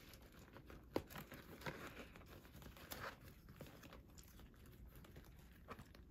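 Faint rustling and a few soft clicks of a leather satchel being handled, its side panel folded back and the bag lifted by its top handles.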